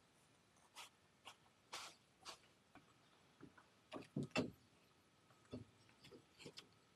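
Faint handling noises: scattered light knocks, taps and rustles of the enclosure's polycarbonate panels and a long plastic ruler, with a quick run of louder knocks about four seconds in.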